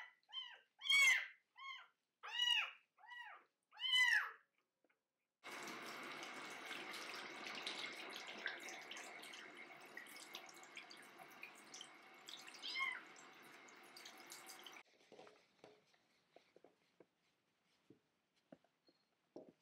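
A 25-day-old kitten crying loudly about six times in quick succession during its first bath. Then a sink tap runs steadily for about nine seconds while it is rinsed, with one more cry partway through. The water cuts off suddenly, leaving faint rubbing of a towel.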